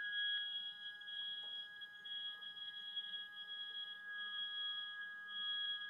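CNC3040's Z-axis stepper motor driving the spindle carriage down at a steady jog feed, a steady, fairly quiet high whine made of several pitches. The axis is being run down toward its lower limit switch.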